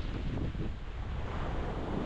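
Ocean waves breaking and washing on a rocky shore, a steady rushing with wind buffeting the microphone.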